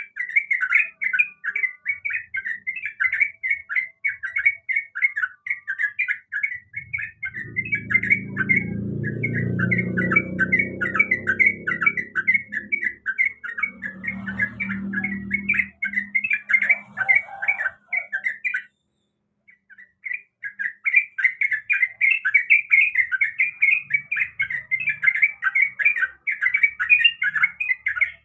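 Yellow-vented bulbul (trucukan) singing a fast, continuous string of bright chattering notes, a recorded song used to lure or train caged birds to respond. The song breaks off briefly about two-thirds through, and a low hum runs underneath for several seconds in the middle.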